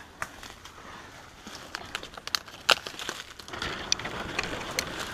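Footsteps crunching through dry leaf litter and brushing past dry palm fronds: a run of sharp crackles and snaps, the loudest about two and a half seconds in, with rustling that grows louder in the second half.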